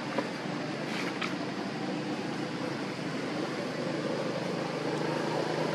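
A motor vehicle engine humming steadily over outdoor background noise, growing a little louder toward the end, with a few faint short clicks about a second in.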